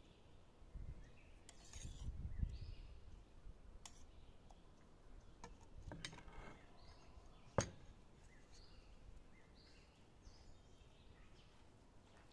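Quiet outdoor ambience: a low rumble about two seconds in, a few light sharp clicks with one louder click past the middle, and faint high chirps scattered throughout.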